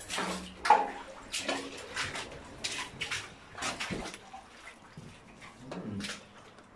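Footsteps on rubble and debris in a disused tunnel: a run of irregular scuffing and crunching steps, a little wet-sounding.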